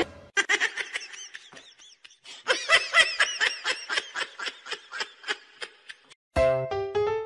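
High-pitched snickering laughter: a quick run of short laugh notes, each rising and falling in pitch, several a second, growing stronger about two and a half seconds in. Music starts near the end.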